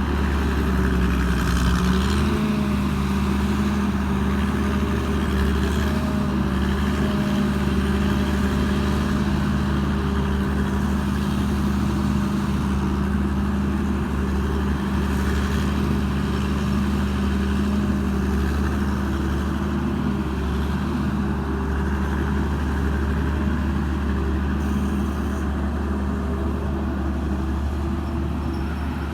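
Diesel engine of a Tamco Pro S9000 combine harvester (Hino J08C six-cylinder) running steadily. Its engine speed picks up slightly about two seconds in, then holds even.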